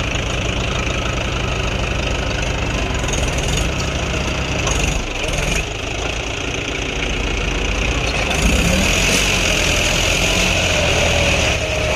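Tractor diesel engines running steadily under load, a red Mahindra on steel cage wheels towing a stuck John Deere out of deep mud by rope.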